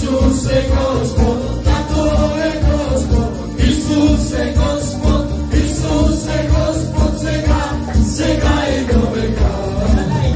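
Live worship song: a woman and a man singing through microphones over a Korg Pa-series arranger keyboard playing chords with a steady drum beat.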